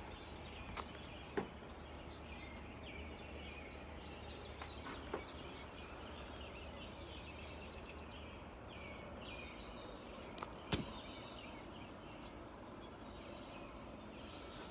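Faint outdoor background ambience with soft, steady chirping in the distance, broken by a few brief sharp clicks, the loudest about a second and a half in and near eleven seconds in.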